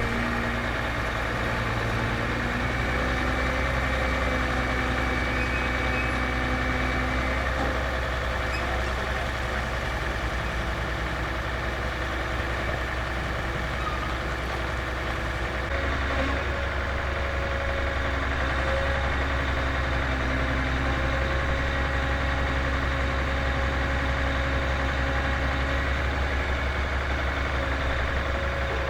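A boat's motor running steadily, its note changing slightly about halfway through.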